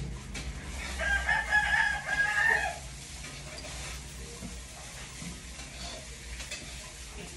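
A rooster crows once about a second in, one long call of nearly two seconds. Afterwards there are faint soft clicks from a cat eating out of a bowl.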